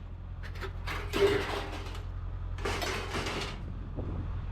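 Scrap metal being pulled and handled: a few separate bursts of metal scraping and clanking, the loudest about a second in with a brief ring.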